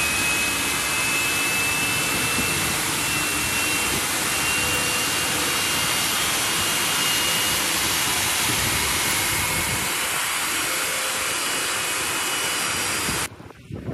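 Jet turbofan engine running steadily: a loud, even rushing noise with a faint, steady high-pitched whine. It cuts off suddenly near the end.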